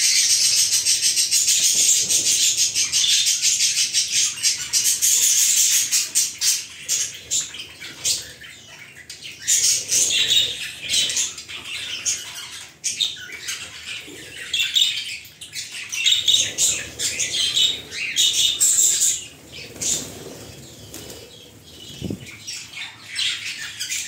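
Lovebirds chirping and fluttering their wings. The high-pitched chatter is dense and unbroken for the first several seconds, then comes in short, broken bursts.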